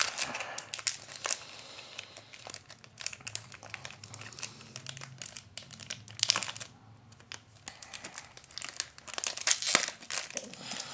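Foil baseball card pack wrapper crinkling in the hands as it is torn open, in irregular crackles, with a short lull about seven seconds in and busier crackling near the end.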